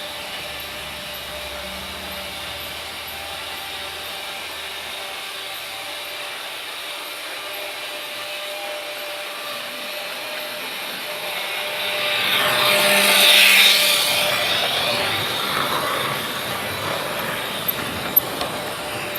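Freight train rolling by steadily, with a louder, high-pitched metallic swell from the wheels and rails about twelve to fifteen seconds in, then two sharp clicks near the end.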